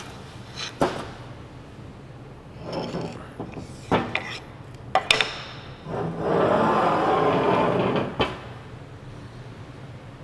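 Workshop handling noises from stripping a small-block Chevy cylinder head: a series of sharp metallic clicks and knocks as valve-train parts are handled. A rubbing, rushing noise lasts about two seconds in the second half.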